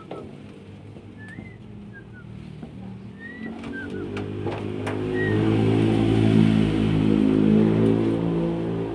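A motor vehicle's engine approaching and passing, growing louder from about three seconds in, loudest in the last third, then starting to fade.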